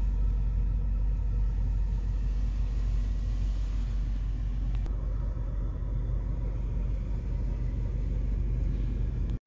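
Car engine running, heard from inside the cabin: a steady low rumble that cuts off abruptly just before the end.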